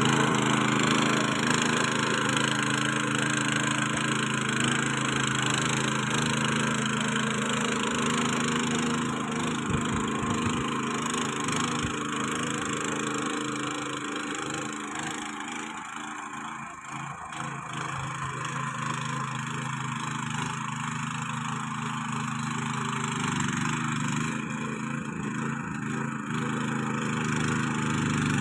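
Walk-behind rotary power tiller: its small petrol engine running steadily under load while the rotary tines churn and crackle through dry soil and stubble. It grows fainter in the middle as the tiller moves off, and louder again near the end as it comes back.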